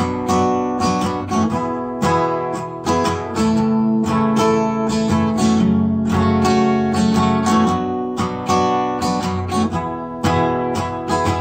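Background music of strummed guitar chords, struck in quick repeated strokes.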